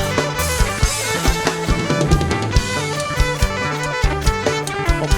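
Instrumental break of a live kantrum band: a drum kit with bass drum and snare keeps a steady beat over bass notes, with no singing.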